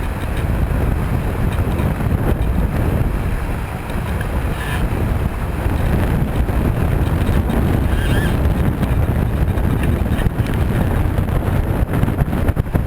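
Wind buffeting the microphone in heavy gusts over the rush of water along the hull of a Mini 6.5 sailboat sailing fast, on the edge of planing. The wind noise is loud and steady, deepest in the low end and rising and falling with the gusts.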